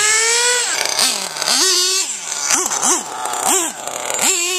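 Small nitro engine of an RC monster truck running at high revs, then dropping and blipped up and down four times in quick throttle bursts before holding a steady high pitch again near the end.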